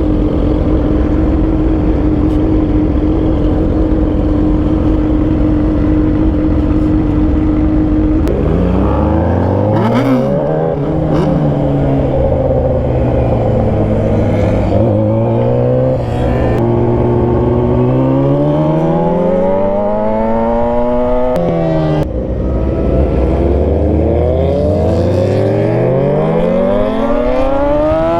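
Yamaha R6 600cc inline-four running at a steady speed, then accelerating through the gears about eight seconds in: the engine pitch climbs in repeated rising runs and drops back sharply at each upshift, with wind rush underneath.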